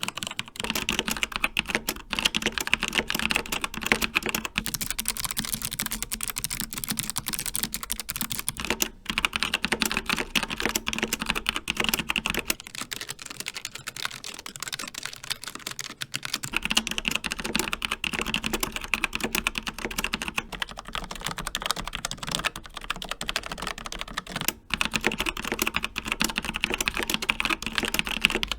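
Fast continuous typing on a succession of mechanical keyboards with different switches, each for about eight seconds: a Keychron K4 with Gateron Brown switches, a Logitech G915 with GL Clicky Blue switches, a Logitech G915 with GL Linear Red switches, and a Logitech MX Mechanical with Kailh Brown switches. The keys clack densely, with only brief breaks.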